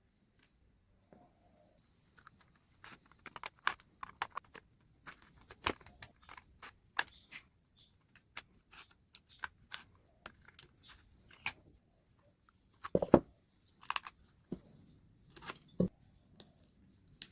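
Irregular clicks, taps and scraping of hand work on aluminium drink cans, with a cluster of louder knocks past the middle.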